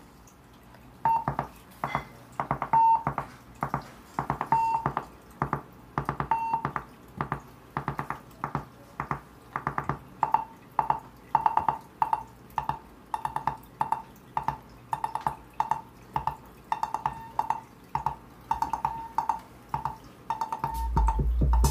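Make Noise 0-Coast synthesizer playing short, plucky sequenced notes about twice a second, mostly on one pitch. Near the end a loud, low steady drone comes in under them.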